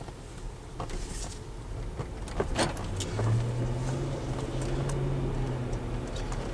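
2012 Land Rover LR4 moving off on a test drive: a few light clicks, then from about three seconds in a steady low engine hum. No rear suspension squeak is heard; the upper and lower hub bushings that caused it have just been lubricated.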